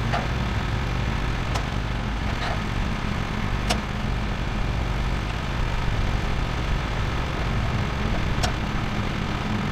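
The band sawmill's small gasoline engine idling steadily, with a few sharp knocks from the log and the clamps being worked on the steel mill bed.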